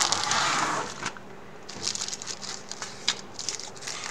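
Clear plastic bags crinkling as they are lifted and handled: a loud rustle in the first second, then scattered softer crinkles and light clicks.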